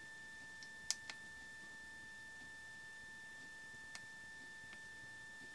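Quiet room tone with a faint steady high-pitched whine, and a few light clicks from a hex key and a digital angle gauge being handled, about a second in and again near four seconds.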